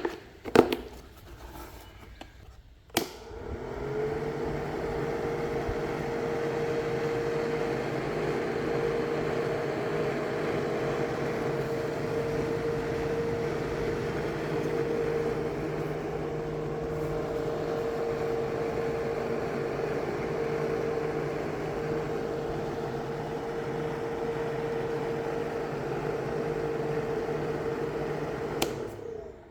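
Small battery-powered electric motor of a homemade fan, switched on with a click about three seconds in, spinning up and then running with a steady humming whine, and switched off with a click near the end. A few handling knocks come before it starts.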